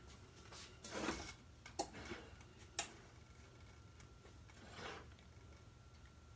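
Glass baking dish being shifted on an enamel stovetop: a brief scrape about a second in and another near the end, with two sharp clinks in between.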